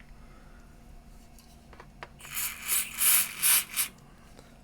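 Rasping rubbing strokes, about five in quick succession starting about two seconds in, as the Sanyo CDP-190's thumbwheel volume potentiometer is worked back and forth to spread solvent degreaser over its scratchy contacts.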